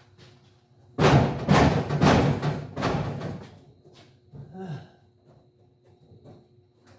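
A loud run of heavy thumps and bangs on car-body sheet metal, starting suddenly about a second in and dying away over the next two seconds or so, as a body section that is still stuck, wedged at the floorboard after its spot welds were drilled out, is forced to break loose.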